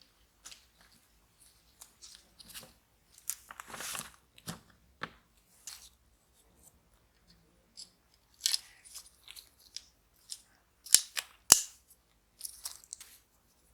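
Small scattered clicks, taps and scrapes of a scale model car and its small parts being handled at a workbench, with two sharp clicks, the loudest, near the end.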